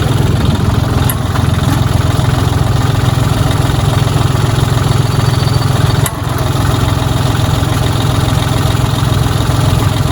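Vehicle engine running with a steady low drone. There is a brief dip and a click about six seconds in.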